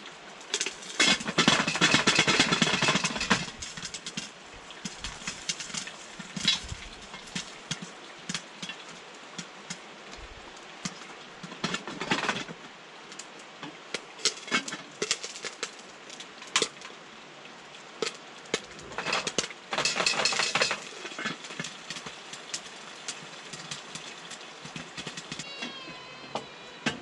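Rapid crackling and sharp popping: dense bursts about a second in and again about two-thirds of the way through, with scattered single pops between.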